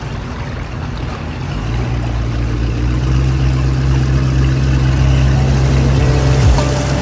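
Motorboat's 150 hp outboard motor running, growing steadily louder as the boat pulls away and gathers speed. Music comes in near the end.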